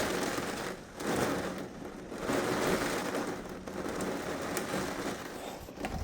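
Heavy thunderstorm rain, a dense hiss that swells and eases, dipping briefly about a second in and again about two seconds in.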